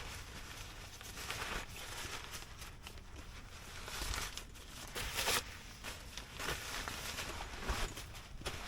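Irregular rustling and crinkling of camping gear being handled, with several louder swishes spread through.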